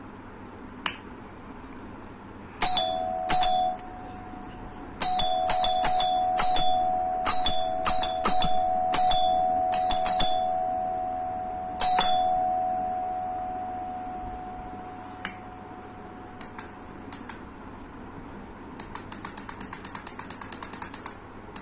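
Electronic ding-dong doorbell chiming as its bell-push switch is pressed again and again, each press a sharp click; the chime rings on and fades away over a few seconds. Near the end comes a quick run of switch clicks with no chime.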